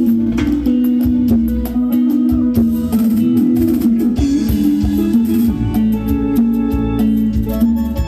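A live cumbia band playing on stage, with electric guitar, bass, drum kit and keyboard, and the keyboard holding chords over a steady beat.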